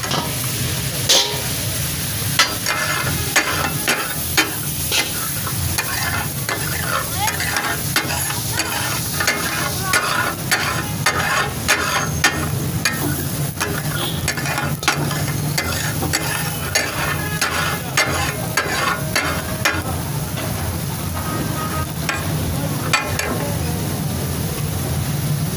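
Fish katakat sizzling on a large steel tawa griddle while flat metal spatulas strike and chop against the hot plate in quick, irregular clacks.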